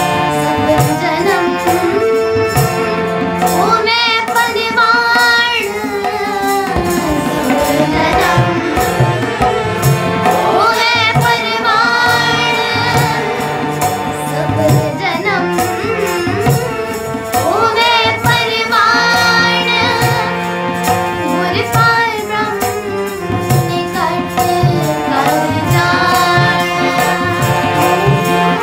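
Sikh kirtan: a girl's voice leads the singing of a Gurbani shabad over a harmonium, with tabla keeping a steady rhythmic beat, and other young voices join in as a chorus.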